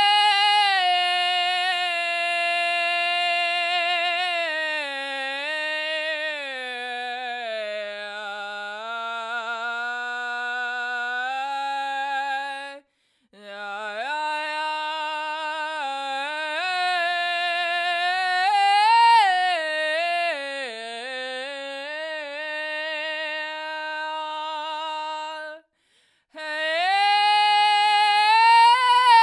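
A woman singing an improvised a cappella melody in full chest voice: long held notes with vibrato that slide down and climb back up, broken twice by brief pauses.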